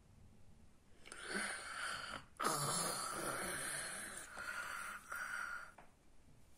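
A person's wheezy snoring breaths, a few long ones in a row, standing in for a sleeping character.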